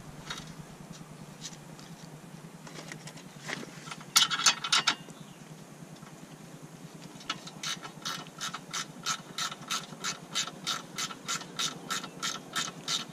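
Ratcheting wrench clicking as it turns the 14 mm nut off a sway bar end link stud: a short cluster of clicks about four seconds in, then an even run of about three to four clicks a second from about seven seconds in.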